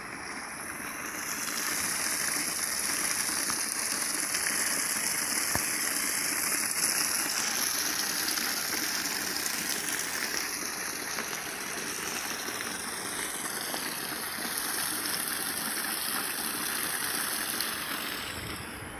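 Steady rushing hiss of a muddy river swollen with floodwater, swelling a second or two in and easing near the end.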